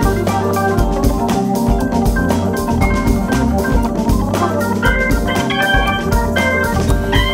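Instrumental background music: held organ-like keyboard chords over a bass line and a steady drum beat.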